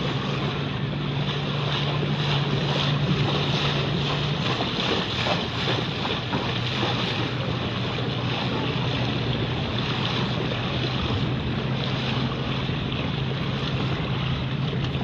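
A boat's motor running with a steady low hum, under a constant rush of wind on the microphone and moving water.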